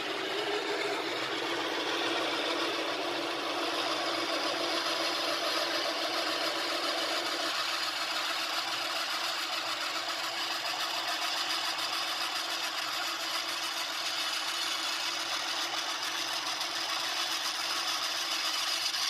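Electric drill running steadily while a freshly sharpened twist drill bit bores a test hole. A higher cutting sound builds a few seconds in and holds steady.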